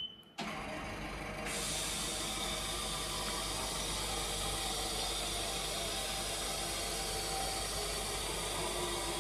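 Haas VF-0E CNC vertical mill powering up after a restart, with its freshly repaired vector drive: a short beep, then a steady hiss and hum of the machine running comes on suddenly and gets louder about a second and a half in.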